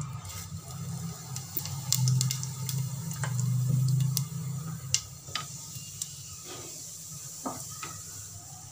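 Cumin seeds sizzling in hot oil in a pressure cooker, with scattered sharp crackles and pops, over a low hum that fades about halfway through.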